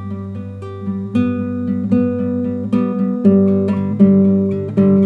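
Classical acoustic guitar played solo: a steady run of plucked notes and chords, a new note every quarter to half second, forming the instrumental passage between sung verses.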